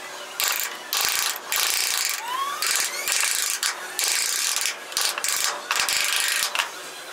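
Repeated harsh scraping strokes, each about half a second to a second long, like a hand tool working the hammer's handle, with a short rising squeak between strokes about two and a half seconds in.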